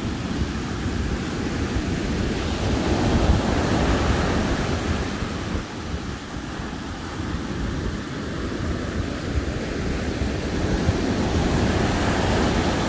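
Surf washing on a beach, with wind buffeting the microphone: a steady rushing noise over a low rumble.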